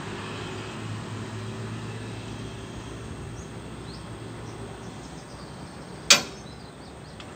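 Motor vehicle engine running steadily and slowly fading, with one sharp loud knock about six seconds in.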